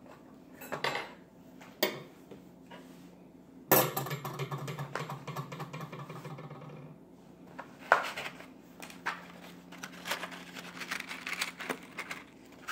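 Metal items clinking and rattling as they are handled: scattered clicks, then a louder knock about four seconds in followed by a few seconds of clattering, and a sharp click near eight seconds.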